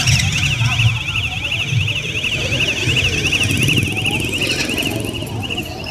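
An electronic alarm or siren warbling rapidly up and down, about four sweeps a second, over a low rumble of motorbike traffic.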